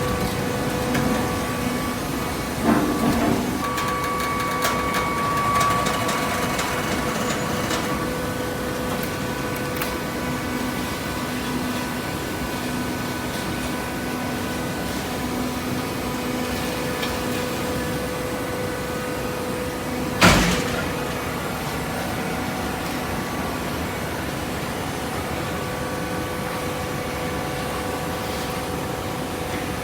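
Hydraulic paper and cardboard baler running, its pump motor giving a steady hum with several constant tones. A few knocks come about three seconds in, and one sharp bang about twenty seconds in.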